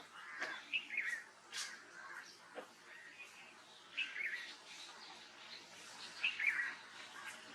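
Small birds chirping in short warbled phrases, repeated a few times, with a few sharp ticks among them.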